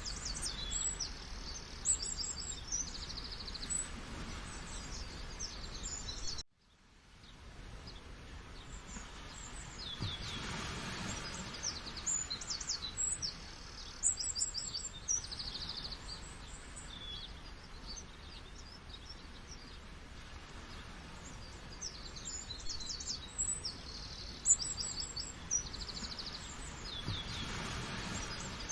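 Many birds chirping and trilling in quick, high notes over a steady rush of falling water. The whole sound cuts out suddenly about six seconds in and fades back up over the next few seconds.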